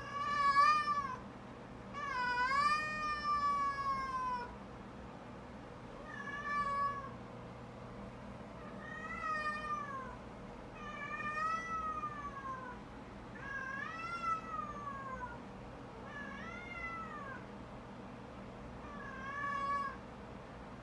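An animal calling over and over: about eight drawn-out, high-pitched calls, each rising then falling in pitch, the second one the longest.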